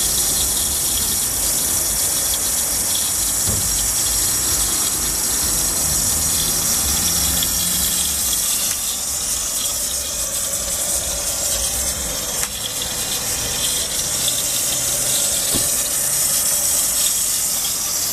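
Steady, loud hiss of water rushing through a municipal water main's pump and valve station, with a low rumble underneath. This is the noise a nearby resident calls loud and annoying.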